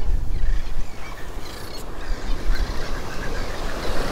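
Wind buffeting the microphone in uneven low gusts over the steady wash of ocean surf.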